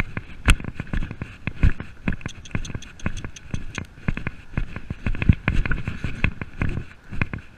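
A horse cantering over grass, heard from the saddle: a run of irregular heavy hoofbeat thuds, several a second, mixed with knocks and rattles of the tack.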